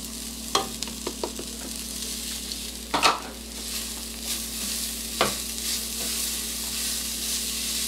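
Hydrated soy mince frying in a pan with a steady sizzle, being stirred, with several sharp knocks of the utensil against the pan, the loudest about three seconds in.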